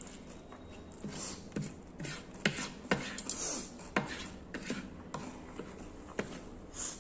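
Metal fork and spoon clinking and scraping against a ceramic plate while picking up noodles, in irregular sharp clicks about one or two a second.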